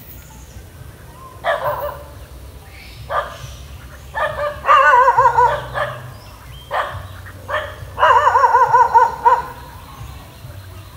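A series of whining, wavering animal cries. Short single cries alternate with two longer warbling runs of a second or two each; the longer runs are the loudest.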